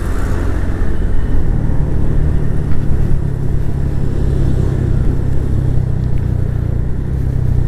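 Motor scooter's engine running at a steady low hum while riding at about 35 km/h, under wind and road noise on the rider's microphone.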